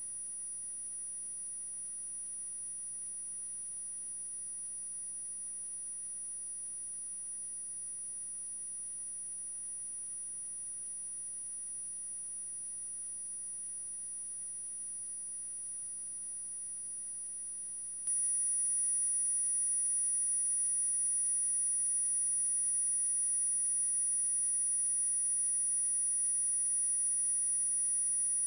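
A steady, high-pitched electronic tone with a rapid fine pulsing, like a held beep, that jumps louder about eighteen seconds in.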